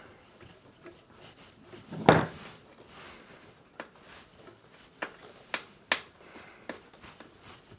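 Scattered clicks and knocks of hand tools and metal parts being handled while a lawnmower engine is taken apart, with one louder knock about two seconds in and a run of sharp ticks after.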